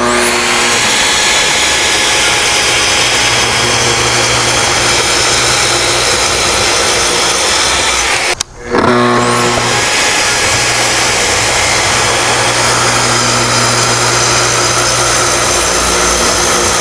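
Festool TS75 track saw spinning up with a rising whine and then cutting steadily through a black walnut slab along its guide rail. A little past halfway it stops for a moment, is started again with the same rising whine, and carries on cutting.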